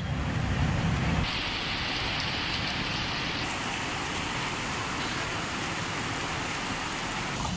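Heavy rain pouring onto a road, a steady, even hiss. A low rumble sits under it for about the first second, and the tone of the hiss shifts abruptly about a second in and again a few seconds later.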